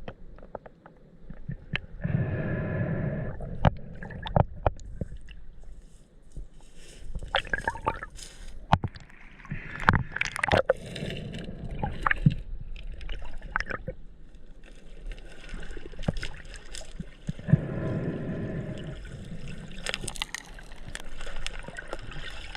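Water gurgling and sloshing, broken by many short sharp clicks and knocks, with two louder surging swells.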